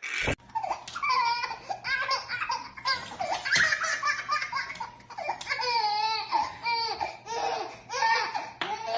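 A baby laughing hard, in repeated bursts of high-pitched giggles and belly laughs.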